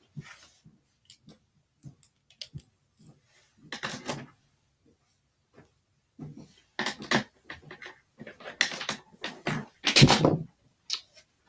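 Scattered clicks and knocks with short bursts of rustling, the loudest near the end: someone moving about close to the microphone and handling objects.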